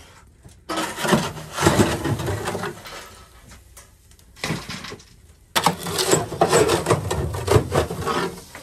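A metal poker scraping and raking burning coals out of a wood-fired cook stove's firebox and into a metal ash bucket, in two long bouts of grating, with a short scrape between them.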